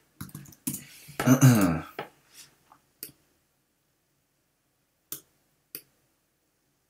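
A man's brief wordless vocal sound in the first two seconds, loudest about a second and a half in, then three single computer mouse clicks spread over the next few seconds.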